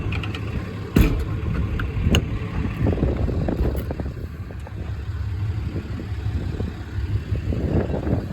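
Diesel truck engine, the 2012 Ram 5500's Cummins 6.7 L inline-six turbodiesel, idling steadily, with a few knocks, the loudest about a second in.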